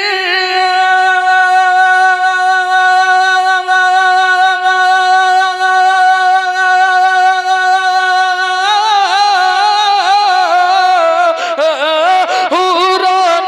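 Male naat reciter singing unaccompanied into a microphone. He holds one long, steady note for about nine seconds, then breaks into ornamented, wavering melodic runs near the end.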